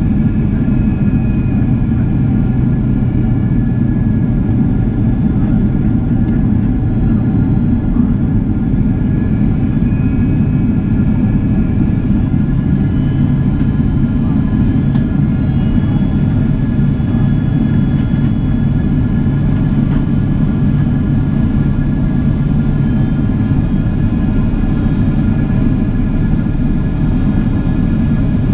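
Steady cabin noise inside a Boeing 767-400ER: a heavy low rush of airflow and engine drone with several steady engine tones above it, and faint high tones that slowly drift in pitch.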